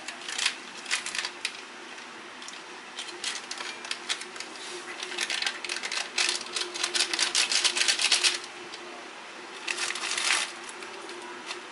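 Foil ramen packaging crinkling and crackling as it is handled and torn, in a few short bursts and then one long stretch of rustling with another burst near the end.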